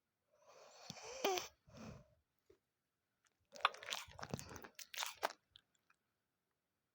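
A sleeping dog snoring: three bouts of rasping breath, the first with a short whistling note and the last crackly.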